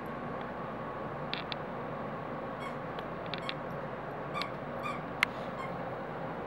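A Chihuahua moving about on fleece blankets: faint scattered small squeaks and clicks, with one sharp click a little after five seconds, over a steady background hiss.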